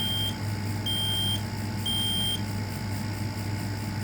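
Interconnected Kidde smoke alarms, set off from the Kidde i4618, sounding the temporal-three fire pattern: three high-pitched beeps about half a second long and a second apart, then falling silent about two and a half seconds in.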